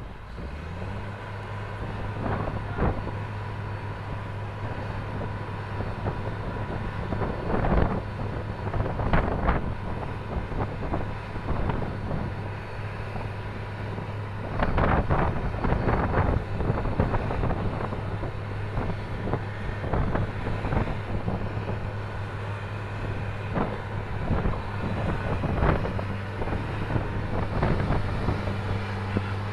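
A tugboat's engine running with a steady low hum, while strong wind buffets the microphone in irregular gusts.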